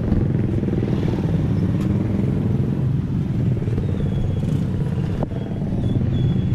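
Motorcycle and scooter engines running close by in slow, congested traffic, a steady low drone with traffic noise around it.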